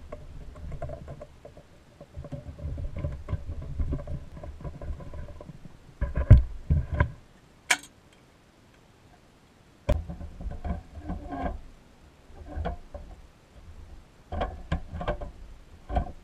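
Handling and assembly noises from a vintage pressed-steel Tonka cement mixer toy: rubbing, light knocks and sharp clicks as a steel axle with plastic gears and a rubber wheel is worked into the chassis. There is a cluster of knocks and one sharp click about six to eight seconds in, then a click near the end as the plastic grille is pressed onto the cab.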